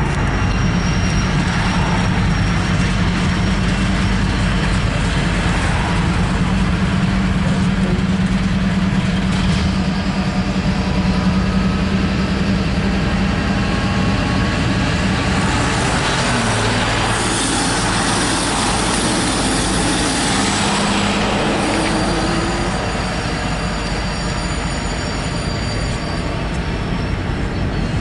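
Union Pacific freight locomotives passing close by: an EMD SD70AH leading and a GE C44ACM behind, diesel engines running with a steady low tone. About sixteen seconds in this gives way to the noise of loaded rock hopper cars rolling past on the rails.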